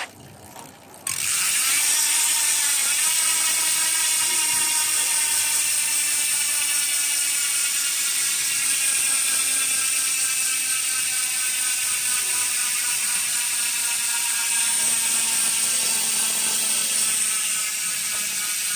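Sword bicycle hub with six pawls freewheeling: the pawls click over the ratchet ring so fast that they make a continuous, loud buzz. It starts suddenly about a second in and stays steady.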